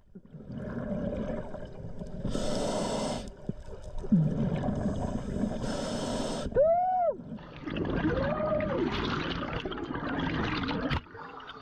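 Underwater scuba breathing: a scuba regulator hisses on two inhalations, and the rest is a low gurgling rush of exhaled bubbles and water. Two short rising-and-falling hoots come a little past the middle.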